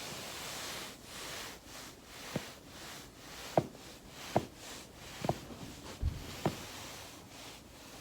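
Back rolling on a foam roller, a steady rustle of clothing on foam, with five sharp pops of the spine's joints cracking and one dull thump just after the fourth.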